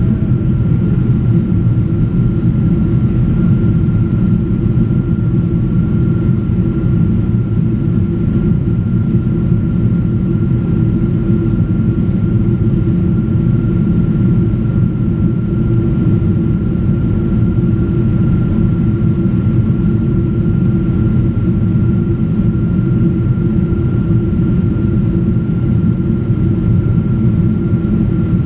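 Cabin noise inside a Boeing 777-200ER airliner in its climb: the steady, loud rumble of the jet engines and rushing air, with a thin steady high tone running above it.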